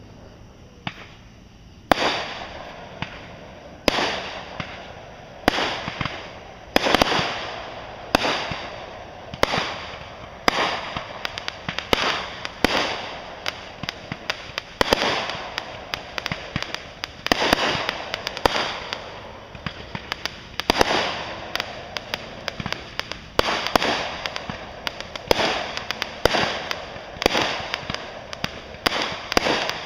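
Fireworks going off in quick succession: after a quiet couple of seconds, sharp bangs come about once a second, each trailed by a fading crackle, and grow denser toward the end.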